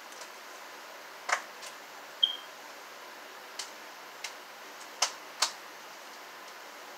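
Scattered sharp clicks and taps over a steady hiss, with one brief high beep about two seconds in.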